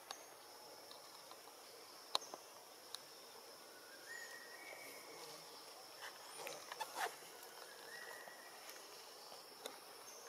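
Faint outdoor animal sounds: a steady high insect drone, a short call that steps up in pitch and repeats every few seconds, and a few sharp clicks.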